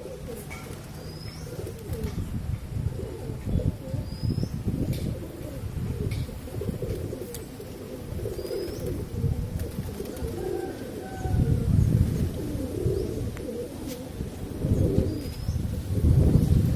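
Pigeons cooing, low coos swelling and fading in repeated bouts. A small bird gives a short high chirp every few seconds.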